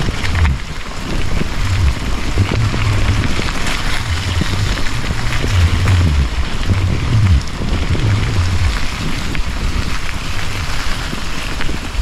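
Mountain bike riding along a dirt forest trail, heard through a handlebar-mounted camera: wind buffets the microphone in repeated low rumbles over a steady hiss of rain and tyres on the trail.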